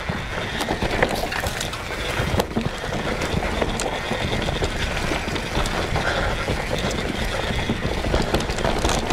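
Mountain bike rolling fast down a dirt trail: steady rushing tyre and ground noise with a low rumble, and now and then a sharp rattle or knock from the bike over bumps.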